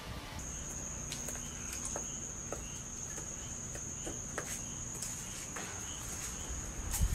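Insects trilling: one steady high-pitched drone that sets in just after the start, with faint short chirps about twice a second beneath it and a few light clicks.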